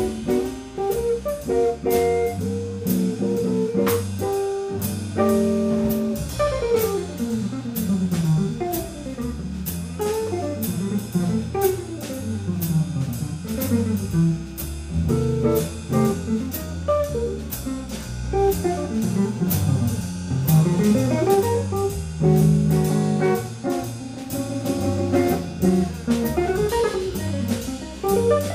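Instrumental jazz: an archtop guitar plays quick single-note runs over a walking double bass, with a drum kit keeping time on the cymbal.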